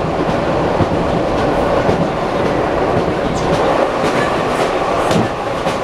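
ED9M electric multiple unit running at speed, heard from inside the car: steady wheel and rail noise with the clickety-clack of rail joints every second or so, as an oncoming ED9M electric train passes close alongside.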